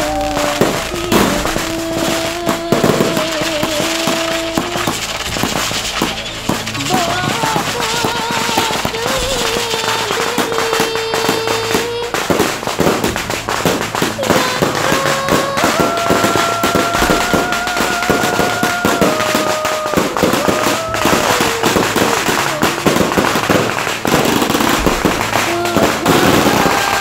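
Fireworks going off in a rapid, continuous run of cracks and bangs, with music playing alongside.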